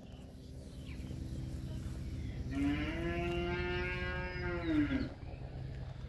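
One long, drawn-out animal call, lasting about two and a half seconds from near the middle: it rises at the start, holds one pitch and falls away at the end.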